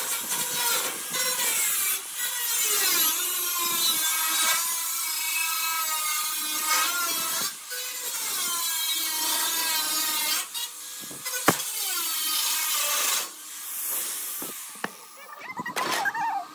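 Angle grinder with a cutting disc slicing through rusty sheet steel: a steady high motor whine over a hiss, its pitch wavering as the disc bites and eases. The cutting drops away about thirteen seconds in, leaving quieter, scattered sounds.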